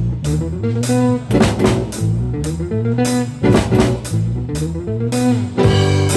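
Live pagode worship band playing an instrumental passage: a drum kit keeps a steady beat under bass and plucked-string chords.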